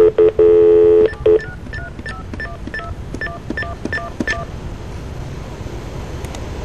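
Over a telephone line, a steady multi-note tone lasting about a second, then a rapid string of touch-tone (DTMF) digits, about five a second, as a number is dialed automatically; the digits stop about four and a half seconds in, leaving line hiss while the call connects.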